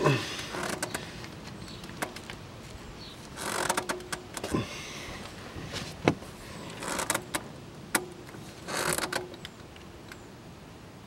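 Spin-on oil filter being unscrewed by hand: several short spells of rubbing and squeaking as the canister turns on its seat, with sharp knocks in between.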